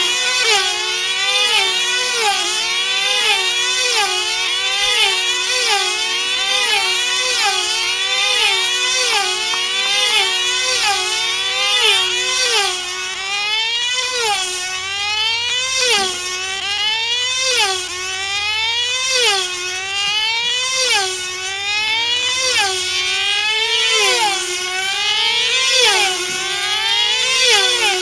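Control-line F2C team-race model aircraft circling, their small 2.5 cc diesel engines running flat out at a high pitch. Several engines overlap, and each one's pitch rises and falls over and over as the planes sweep past on every lap.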